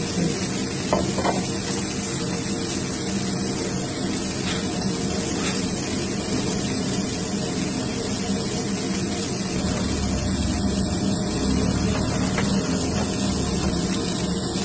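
Chicken pieces sizzling on a hot flat griddle, a steady hiss over a steady low hum.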